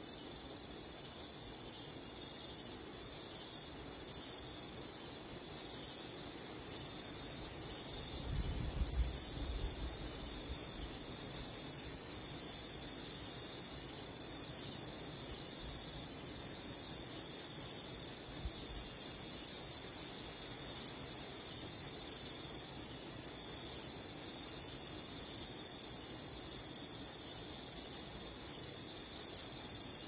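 Insect trilling steadily on one high pitch in a fast, even pulse, with a short low rumble about eight seconds in.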